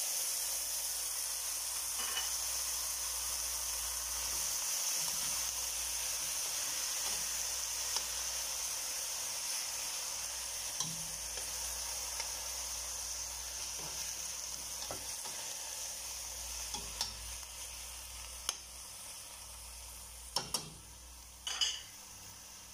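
Raw chicken pieces sizzling as they start to fry in hot olive oil with garlic and onion in a stainless steel pot. The sizzle slowly dies down, and a few sharp knocks come near the end.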